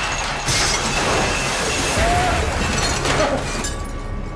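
Ceramic bowls smashing and clattering off shelves onto the floor, with heavy thuds among the breaking crockery. The din eases off near the end.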